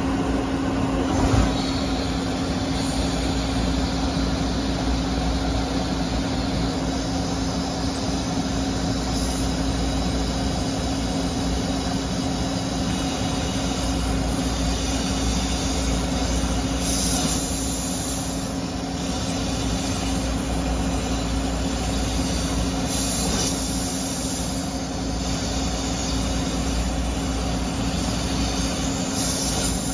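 2000 Amada AP3367V punch-and-laser machine cutting sheet metal. It gives a steady machine hum with one constant tone under a hiss, and a single knock about a second in.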